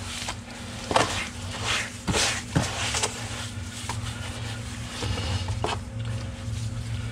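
Hand spreading and smoothing wet sand under shallow water in the bottom of a plastic tank: scattered soft scrapes and swishes, a handful of them, over a steady low hum.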